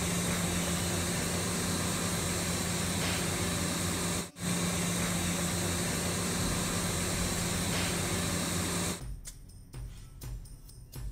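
Steady hum and hiss of commercial kitchen ventilation, with a constant low drone under it. It breaks off for an instant a little past four seconds, then drops away to much quieter sound about nine seconds in.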